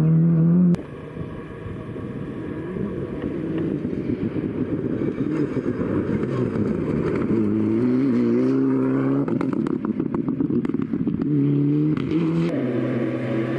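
Rally car engines revving hard. The sound cuts abruptly just under a second in, then a car's engine builds as it approaches, its pitch rising and falling through throttle and gear changes. Past the middle comes a quick run of sharp crackles.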